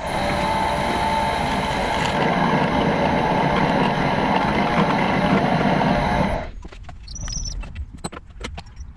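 Drill press running with a twist drill cutting into metal: a steady motor hum with a grinding cutting noise that stops abruptly about six and a half seconds in, followed by light clicks and knocks of metal being handled.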